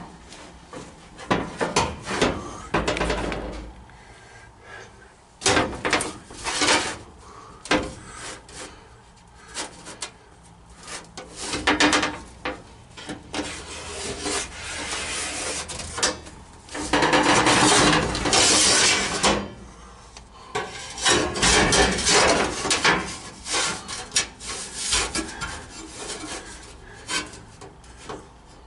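A loose sheet-steel floor patch panel being slid, pushed and shifted against a 1966 Ford F100's cab floor while it is trial-fitted, making irregular scraping and rubbing of metal on metal with a few sharp knocks.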